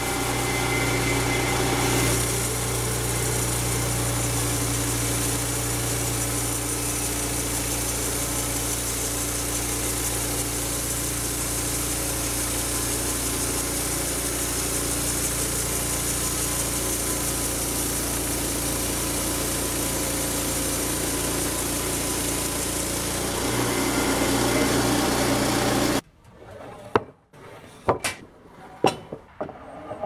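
Homemade band sawmill running steadily, its band blade sawing through a squared log, with a steady low drive hum under the cutting noise. Near the end the sound stops abruptly and a few sharp knocks follow.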